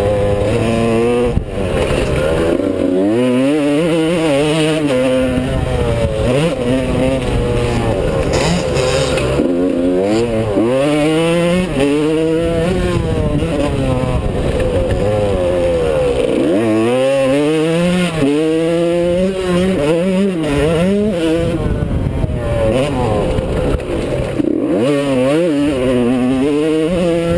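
Yamaha YZ125 two-stroke motocross engine ridden hard, its pitch climbing and dropping back again and again as the throttle is worked.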